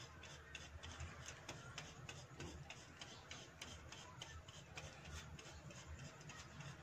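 Cheese being grated by hand on a flat metal grater: a quick, faint run of short scraping strokes, several a second.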